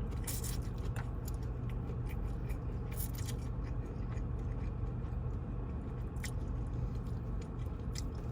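Close-miked chewing and biting of Panda Express food, with scattered short crisp clicks and wet mouth sounds, over a steady low hum.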